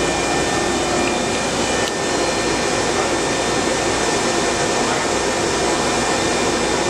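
Studer S40 CNC cylindrical grinder running: a steady hiss with a few faint, constant high whines.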